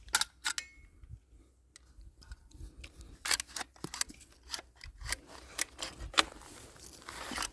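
Scattered metallic clicks and clacks from the Auto-Ordnance Thompson M1 submachine gun's action being handled while the jam-prone gun is worked over, with no shots fired. A rustling, scraping noise builds near the end.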